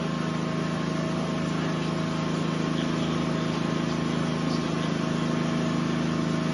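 Steady engine drone with a constant low hum that holds the same pitch throughout.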